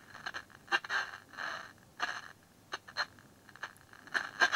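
Small AM medium-wave transistor radio's speaker giving short, faint snatches of sound, cut off above the treble, with a few sharp clicks in between as the band is tuned. Reception is weak, with almost no static: the set is quite deaf.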